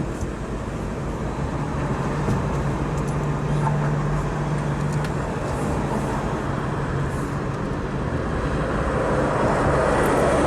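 A car running, heard from inside the cabin: a steady low hum with road noise that grows slightly louder near the end.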